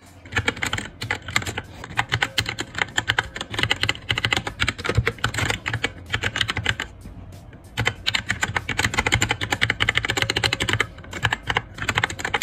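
Fast typing on a T60 mechanical keyboard with red linear switches: a dense run of key clacks that breaks off for about a second midway and briefly again near the end.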